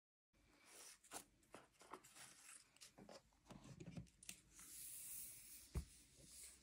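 Faint handling of a large cardboard advent calendar box: light taps and rustles, then a longer sliding brush as the front cover swings open, and a soft thump about a second later as it comes to rest.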